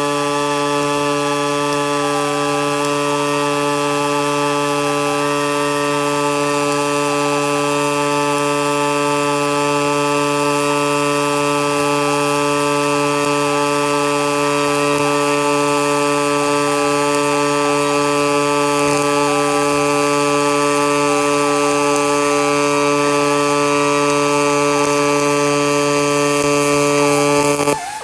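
Millermatic 255 MIG welding arc running a continuous stringer bead on 3/8-inch steel with argon/CO2 gas: a loud, steady buzzing hum over a hiss, which cuts off suddenly near the end as the arc is broken.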